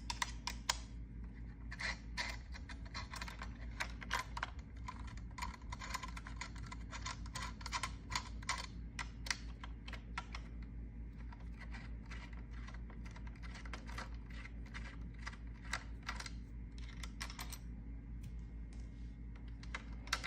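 Irregular light clicks and taps of a screwdriver and small plastic and metal parts being handled as screws are taken out of a cordless finish nailer's housing, over a steady low hum.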